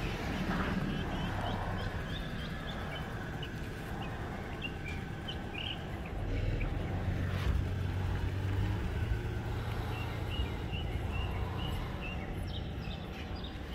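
Outdoor ambience: small birds chirping in short, repeated notes over a low, steady rumble.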